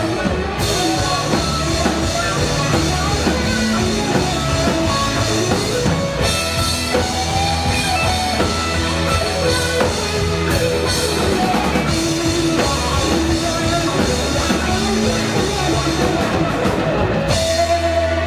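Live rock band playing, with a drum kit and electric guitars. Near the end the drums stop and a held guitar chord rings on.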